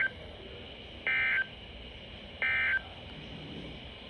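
Emergency Alert System SAME end-of-message data bursts: short, buzzy two-tone digital chirps about a second and a third apart. The tail of one burst is followed by two more, over steady radio hiss, marking the end of the alert message.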